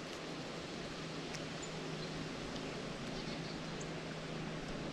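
Faint open-air ambience: an even hiss under a steady low hum, with a few short, faint high-pitched chirps scattered through.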